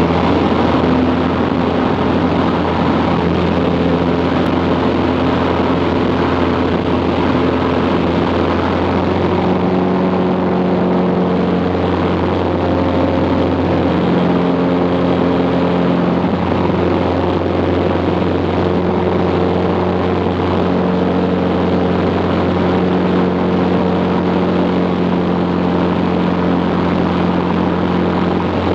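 Single-engine propeller airplane's piston engine and propeller running steadily, heard from inside the cockpit: a constant drone whose pitch shifts slightly a few times.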